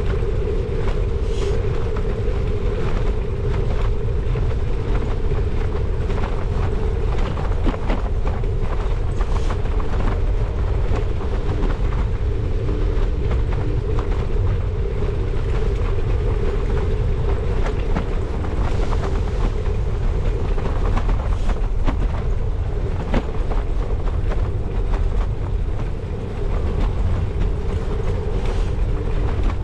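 Bicycle riding along a tarmac path, heard from a bike-mounted camera: wind buffeting the microphone and tyre rumble under a steady hum. Occasional short clicks and knocks come through as the bike rolls over bumps.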